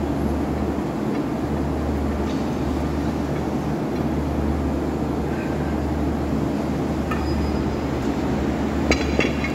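Steady low rumble, with a couple of light metallic clinks near the end.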